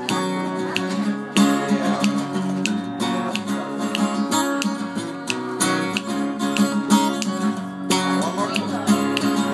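A live band playing an instrumental passage between sung sections, with guitar to the fore over a steady drum beat.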